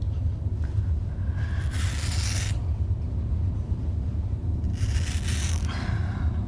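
A knife blade scraping through hair in two rasping strokes, one about a second and a half in and one about five seconds in, over a steady low rumble.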